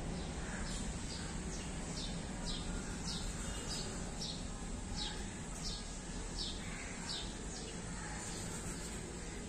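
A small bird chirping over and over, short high chirps about two a second, stopping near the end, over steady low background noise.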